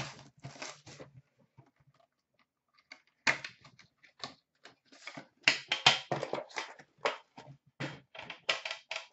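Hands opening a cardboard hockey card box and lifting out the metal tin inside: a string of irregular clicks, taps and scrapes of cardboard and tin, with a short pause about a second in, then denser handling to the end.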